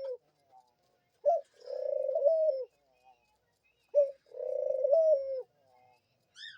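A dove cooing twice. Each coo is a short clipped note followed by a longer rolling note that lifts in pitch near its end.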